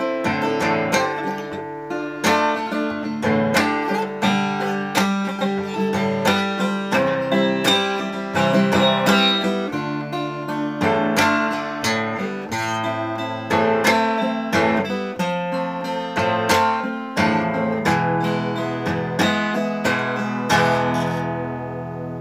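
Steel-string acoustic guitar played fingerstyle: a plucked melody over bass notes, ending near the end on a chord left to ring and fade.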